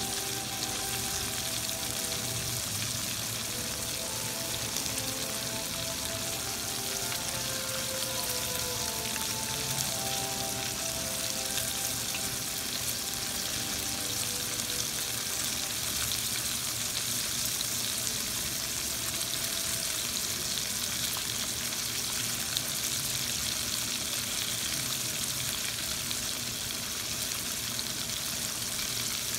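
Breaded chicken breasts shallow-frying in oil in a skillet: a steady sizzle.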